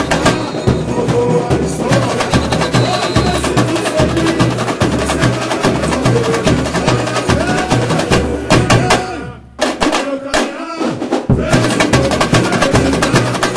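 Samba school bateria playing a samba beat: surdos keeping a steady low pulse under rapid tamborin strokes and other hand percussion. About nine and a half seconds in most of the drums stop for a short break with a few scattered hits, then the whole bateria comes back in together.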